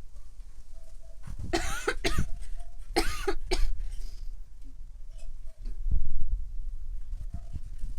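A woman's smoker's cough, in two short bouts of coughing a second or so apart. Near the end comes a dull low thump.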